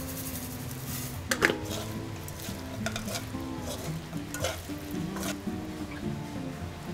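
Wooden spoon and spatula stirring and scraping sticky chili-glazed dried anchovies around a stone-coated frying pan, with several sharp scrapes and clacks against the pan, the loudest about a second and a half in.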